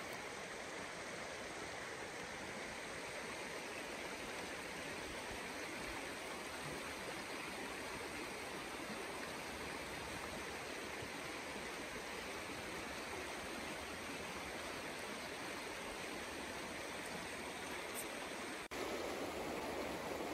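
Steady rush of a mountain river running over rocks. Near the end it cuts to a closer, somewhat louder rush of the water.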